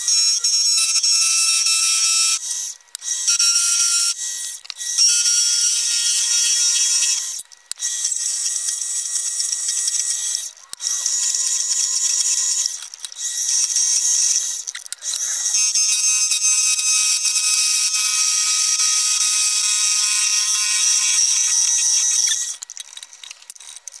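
Harbor Freight mini lathe cutting a metal nut spun on a bolt: a loud, high-pitched screech and whine from the tool on the turning metal, breaking off briefly several times as the cut pauses.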